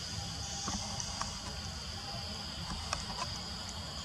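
Outdoor ambience with a steady high insect drone, a low rumble underneath, and a few faint sharp ticks.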